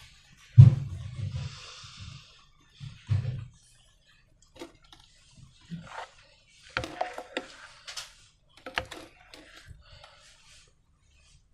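Hand-handling of slime and balloons: a dull thump about half a second in, a brief hiss, then scattered small clicks and crackles.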